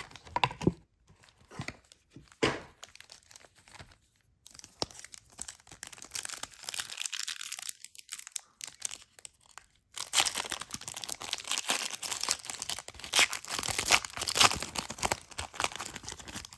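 Upper Deck Marvel Annual trading card packs being torn open, their wrappers tearing and crinkling. A few sharp clicks come first, and the crinkling grows louder and denser about ten seconds in.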